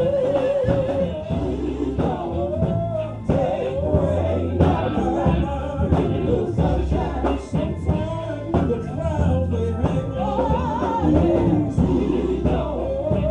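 Live gospel music: voices singing a wavering, held melody over a band with bass and drums.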